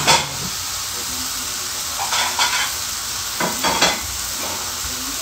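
Food frying in a pan on the stove, a steady sizzling hiss; it is scorching ('sapecando'). A few brief clatters cut through it near the start, about two seconds in and again around three and a half seconds.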